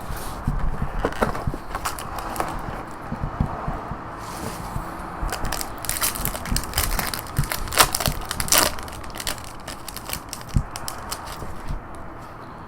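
Packaging of a trading-card hobby box being opened by hand: irregular crinkling, crackling and tearing with scattered sharp clicks, heaviest about six to nine seconds in.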